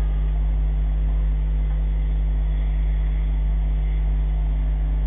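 Steady low mechanical drone with an unchanging deep hum, like an engine or machine running continuously.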